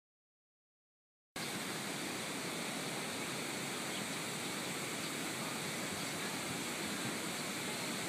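Steady rush of flowing water from a valley stream, cutting in abruptly a little over a second in.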